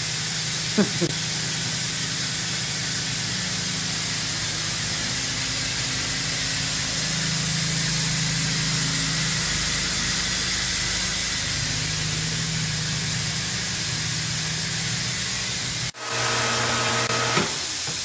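Dairy milk-house machinery running: a steady, even hiss over a low hum, from the milking system and bulk-tank equipment while milk flows into the receiver jar. The sound drops out briefly near the end, then carries on the same.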